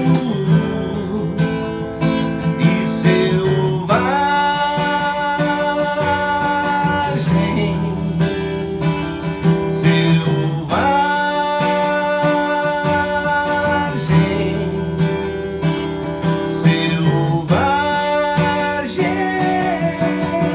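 Yamaha FG-150J acoustic guitar strummed, with a man singing three long held notes over it, about four, eleven and seventeen seconds in.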